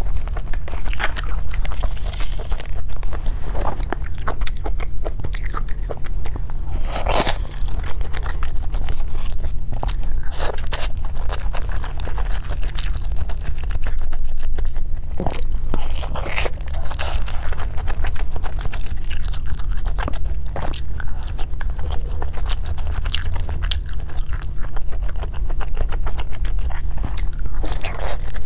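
Close-miked eating: repeated biting and chewing with short, irregular mouth clicks and smacks, along with bamboo chopsticks scraping and tapping in a plastic takeaway box. A steady low hum runs underneath.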